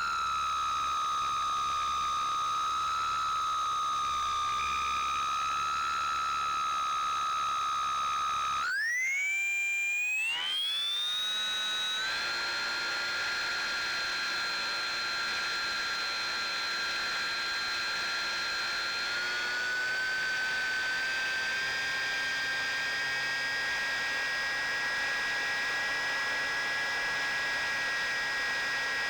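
Electric motor and propeller of a ZOHD Drift FPV plane whining at a steady pitch over a rush of wind noise. About a third of the way through, the whine briefly drops away and then glides up to a higher pitch as the motor speeds up; later it steps up a little higher again.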